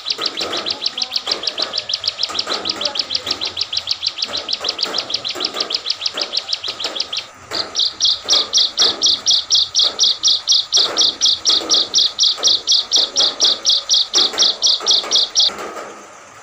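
Small caged songbird singing a rapid, steady train of high repeated notes, about eight a second. About seven seconds in it breaks briefly, then resumes louder and slower at about four notes a second, and stops about a second before the end.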